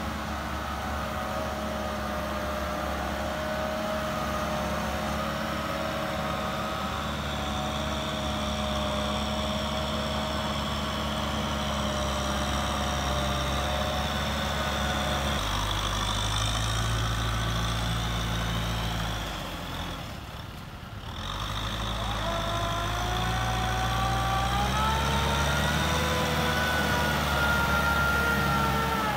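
Kubota tractor's diesel engine working hard as it drives a rotary tiller through deep mud and water, with a higher whine over the engine. The engine note changes about halfway, dips briefly, then climbs in pitch near the end.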